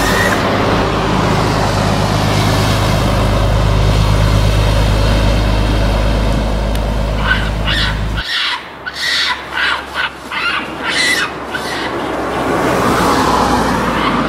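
A car engine running with a steady low hum, heard from inside the car, which cuts off abruptly about eight seconds in. A hiss with a quick series of short, sharp sounds follows.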